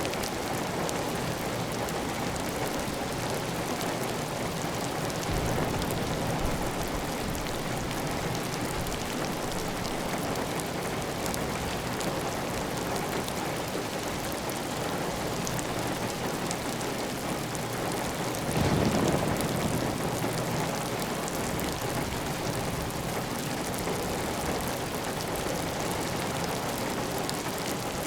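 Heavy, steady rain falling on a clay tile roof, with water running off the roof edge. The rain swells briefly louder and deeper about two-thirds of the way through.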